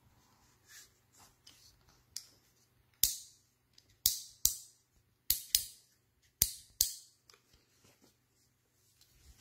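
The spray-pattern dial of a metal garden hose spray gun clicking as it is turned through its settings: about seven sharp clicks, mostly in pairs, with a few fainter ticks around them.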